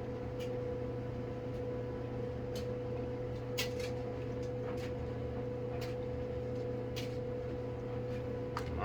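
Steady mechanical hum with a constant tone, with a few faint, scattered clicks and taps.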